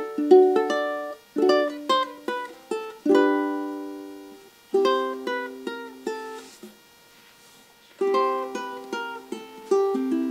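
Ukulele fingerpicked, playing phrases of plucked melody notes over chord tones. The playing stops for about a second a little past the middle, then resumes.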